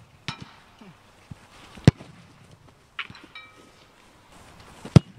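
A football being kicked: several sharp thuds, the loudest about two seconds in and near the end.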